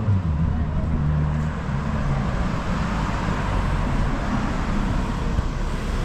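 A car driving past on the road, its tyre and engine noise swelling to a peak about halfway through and then easing off, over a low traffic rumble.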